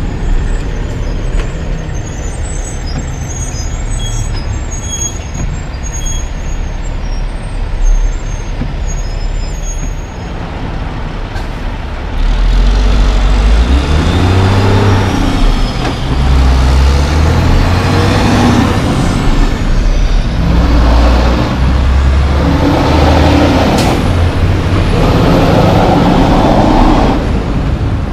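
Loaded log truck's diesel engine, idling low at first, then pulling away hard from about twelve seconds in, its pitch rising again and again as it climbs through the gears.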